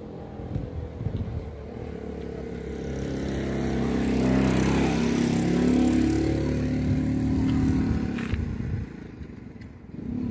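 A motor vehicle's engine passing by: it grows louder over a couple of seconds, is loudest through the middle, then fades away near the end.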